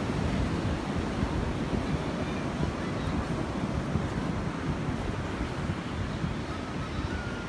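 Ocean surf washing steadily on a shore, with wind buffeting the microphone.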